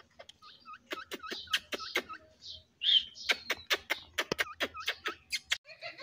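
Rose-ringed parakeet making short chirps and a rapid run of sharp clicks, with one louder call about three seconds in.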